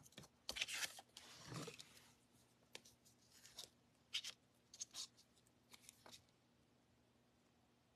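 Faint paper-crafting handling sounds: cardstock rustling and being pressed together in the first couple of seconds, then a scatter of soft ticks and brushing scrapes as a small hand tool works over a paper circle.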